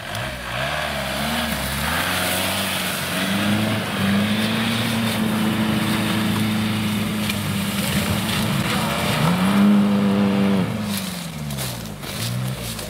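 Opel Frontera Sport's 2.2 DTi turbodiesel engine revving hard under load while pushing through mud. The revs climb over the first few seconds and hold high and steady, rise again about ten seconds in, then drop away near the end.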